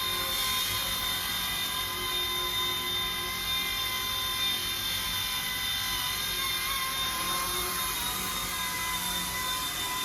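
Small electric RC helicopter built on RC ERA C-186 mechanics running: a steady high-pitched motor whine with rotor hiss, its pitch wavering slightly near the end.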